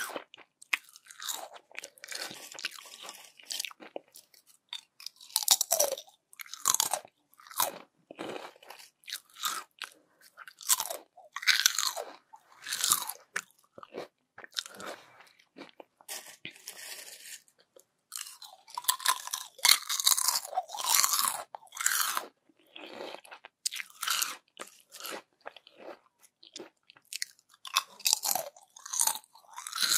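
Close-up crunching and chewing of crispy yam chips: bites crackle sharply, then a run of crunchy chews, repeated in irregular clusters with short pauses.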